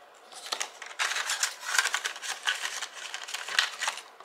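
Paper banknotes and a paper envelope being handled while the cash is counted: a quick run of crisp rustles and flicks that starts about a second in.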